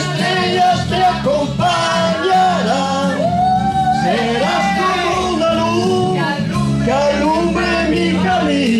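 Karaoke: people singing into handheld microphones over a backing track played through PA loudspeakers.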